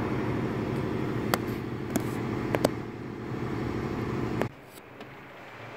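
A few sharp metallic clicks from hand tools working the bolts of the intake manifold brackets, four in all, over a steady low hum that cuts off suddenly about four and a half seconds in.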